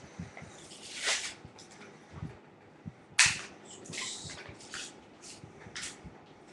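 Handling noise from a plastic Nerf blaster and its clip: scattered clicks, knocks and brief rustles, with a sharp click about three seconds in.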